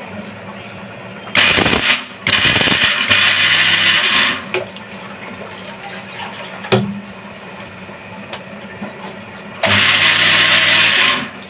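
Electric mixer grinder with a small steel jar grinding almonds and cashews to powder in short pulses. A brief burst comes about a second and a half in, then a run of about two seconds, then another run of over a second near the end, with a single click from the jar in between.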